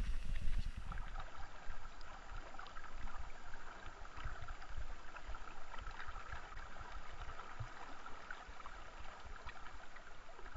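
River water running as a steady rushing hiss, with irregular low thumps on the microphone.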